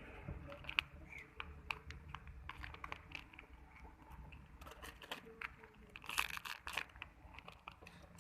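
Scattered clicks and crinkling of things being handled, with a denser stretch of crinkling about six seconds in.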